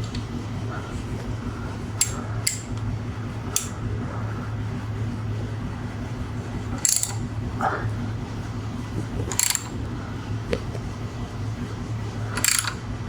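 Metal hand tools clicking and clinking while a motorcycle frame slider bolt is tightened: about six short sharp metallic clicks with a brief ring, the loudest three in the second half, over a steady low hum.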